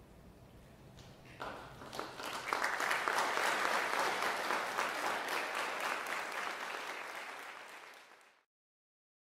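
Concert audience applauding. After a hushed second and a half, the clapping starts and swells quickly into full applause, then cuts off suddenly near the end.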